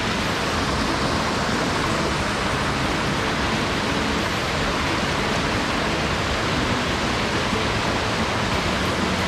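Steady rush of water from a rocky mountain stream tumbling over stones.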